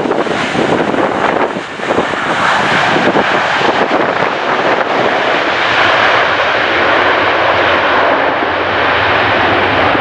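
Airliner engines running as the plane comes in to land, a loud steady rushing that builds in the first couple of seconds and then holds. Strong wind buffets the microphone early on.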